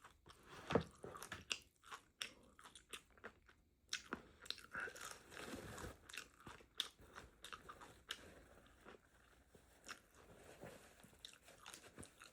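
Close-miked mouth sounds of a person chewing a fried avocado taco: irregular crunching bites and wet clicks of the mouth, fairly faint.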